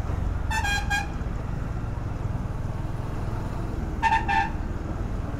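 A motorcycle riding in city traffic, its engine and road noise steady underneath, while a vehicle horn toots in short quick beeps twice: about half a second in and again about four seconds in.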